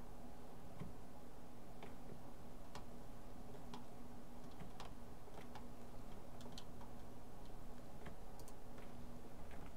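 Computer mouse clicks: scattered sharp clicks, roughly one a second, over a faint steady hum.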